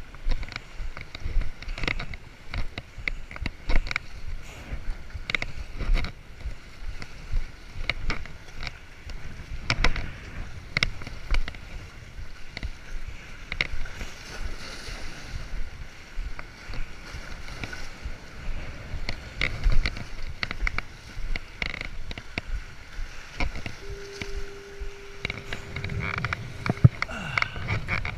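Footsteps and knocks on the stone blocks of a lake breakwall, with waves lapping and splashing against the rocks and wind rumbling on the microphone. Near the end a single steady tone sounds for about three seconds.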